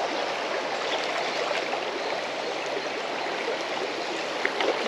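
River water running steadily, an even rushing flow with no breaks.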